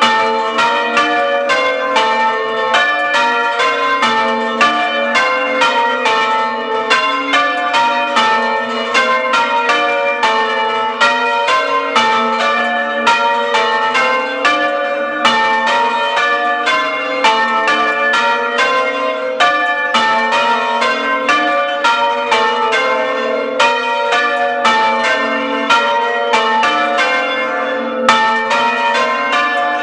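Church tower bells rung close up, striking in a rapid, even succession with several strokes a second and ringing tones that overlap. They are rung open, with no muffles buckled to the clappers, so they sound bright and joyous.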